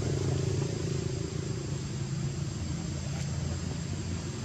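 Steady outdoor background noise: a low rumble with an even hiss over it.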